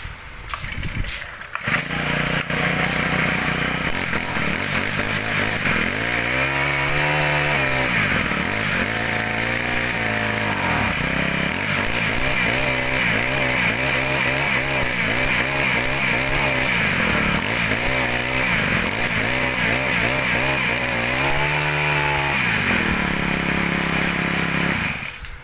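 Honda GX25 four-stroke brush cutter engine catching about two seconds in and idling. It is revved up and down with the throttle several times, then cut off near the end.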